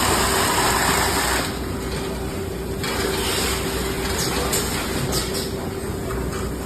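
Carton tape sealing machine running: a steady motor hum with a constant tone, a louder hissing stretch for about the first second and a half, and a few light clicks near the end.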